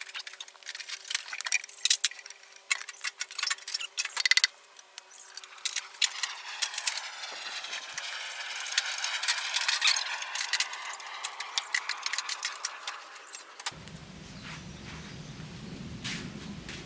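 Metal parts of a cast-iron drill press clinking and clanking as it is taken apart. After that comes a hissing sweep whose pitch falls and rises again, and a low rumble starts near the end.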